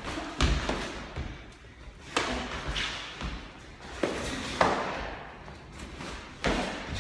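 Kicks and gloved punches landing on padded taekwondo chest protectors during sparring: about five sharp thuds a second or so apart, each with a short echo.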